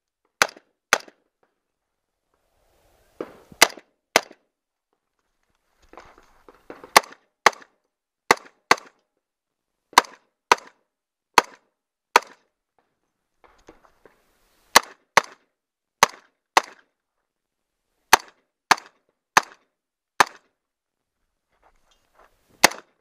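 Bushmaster AR-15 rifle in .223/5.56 firing a long string of about twenty shots, mostly as double taps half a second apart with pauses of one to three seconds between pairs.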